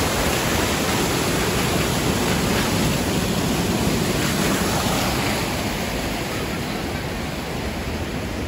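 Mountain waterfall: a steady rush of falling water, a little quieter in the second half.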